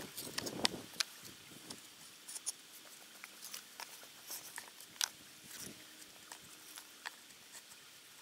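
Sandstone slabs being set by hand, clicking and scraping against each other in scattered, irregular small taps.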